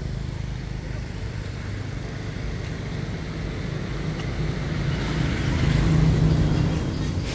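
A motor vehicle passing: a low engine rumble that swells to its loudest about six seconds in, then fades.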